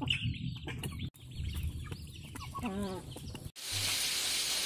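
Chickens clucking, with one wavering call a little before the cut. After a sudden cut near the end, a steady hiss of fish frying in hot oil.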